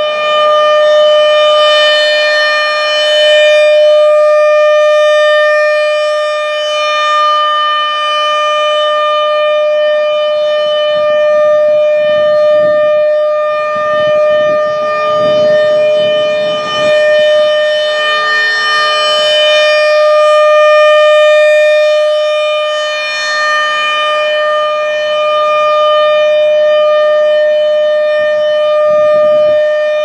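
American Signal RM-130 rotating electromechanical tornado siren sounding a steady tone on a test. The tone holds one pitch while its loudness swells and fades as the horn turns toward and away.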